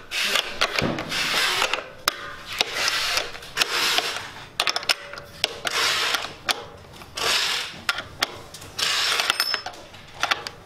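A 14 mm wrench tightening the nuts on a servo motor's mounting bracket, in short repeated bursts of rapid metal clicking and rasping as the wrench is worked back and forth.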